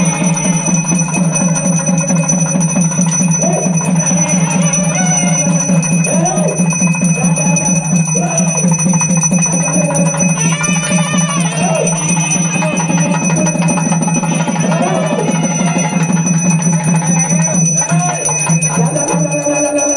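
Loud ritual music with a bell ringing steadily over a low, fast-pulsing drone, and a man singing or chanting into a microphone through a loudspeaker. The low drone drops out just before the end.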